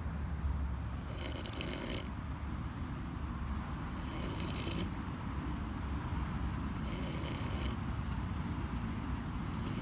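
A sleeping pig snoring: three snoring breaths about three seconds apart, each a little under a second long, over a steady low rumble.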